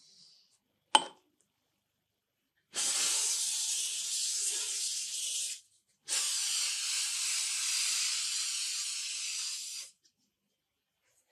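Aerosol spray can hissing in two long bursts, each about three seconds, coating a steel tool head in a wet film, with a short click about a second before the first burst.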